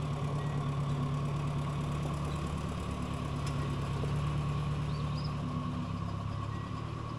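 Old farm tractor engine running steadily at low speed as the tractor drives across the yard.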